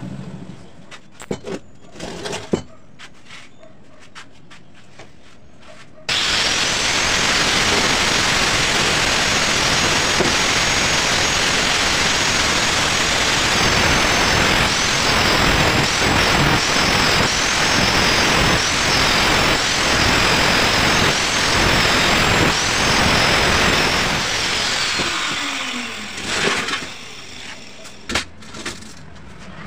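Handheld angle grinder cutting through a steel pipe. A few sharp clicks come first. About six seconds in, the grinder starts suddenly with a high whine over a harsh grinding hiss, and the whine dips each time the disc bites into the steel. After about eighteen seconds it is switched off and winds down with a falling whine.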